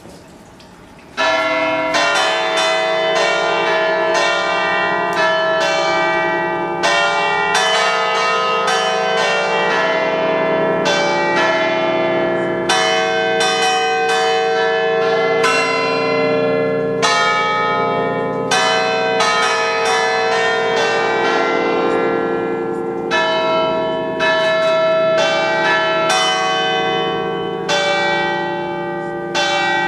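A tune struck note by note on the tower's concert of eight church bells in C, cast by Pasquale Mazzola in 1879. The strikes come about one or two a second at changing pitches, each bell ringing on under the next. It begins faintly and turns loud about a second in.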